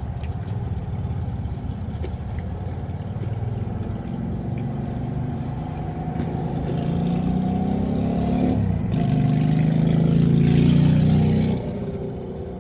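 A motor vehicle's engine running nearby, rising in pitch and getting louder as it accelerates, loudest a few seconds before the end, then falling away suddenly.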